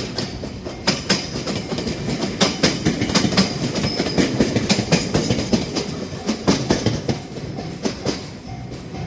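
A train passing close by, its wheels clattering rapidly over the rail joints over a low rumble; the clatter is thickest through the middle and thins out near the end as the train goes by.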